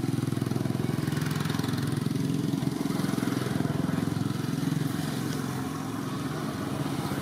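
A small engine running steadily at a low, even pitch, easing off a little about five seconds in.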